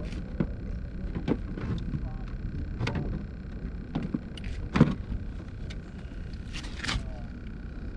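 Scattered knocks and clicks of handling, the loudest about five seconds in, over a steady low rumble.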